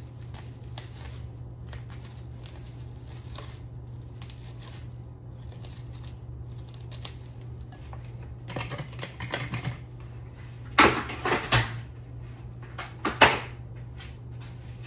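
Scissors snipping plastic wrap and the wrap box being handled: light clicks and crinkling, then a few sharp clattering knocks in the last third, over a steady low hum.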